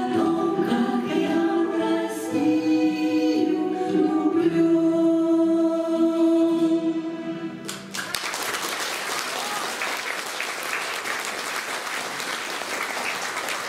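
Choir singing, ending on a long held note that cuts off about eight seconds in, followed by audience applause.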